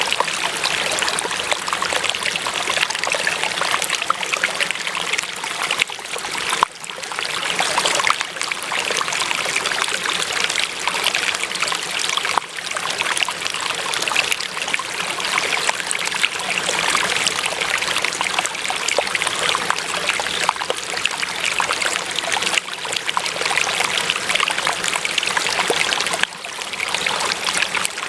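Running water, a stream trickling and splashing steadily, with a brief drop in level twice.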